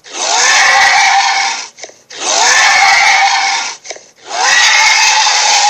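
Three roars from a monster sound effect, each about a second and a half long with a short break between them. Each rises in pitch at the start, then holds as a harsh, noisy cry.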